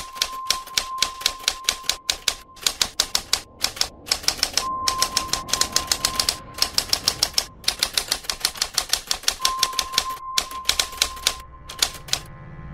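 Typewriter keys clacking in quick runs of sharp strokes, several a second, with short pauses between runs, stopping shortly before the end.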